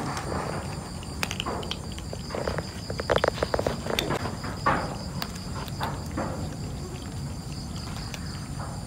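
A cat crunching dry kibble from a metal tray: irregular crisp crunches, with a quick run of them about three seconds in. Steady insect chirring continues behind it.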